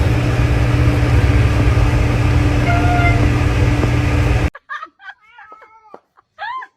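A loud steady noise with a low hum cuts off suddenly about four and a half seconds in. A cat then meows several times in short calls that rise and fall.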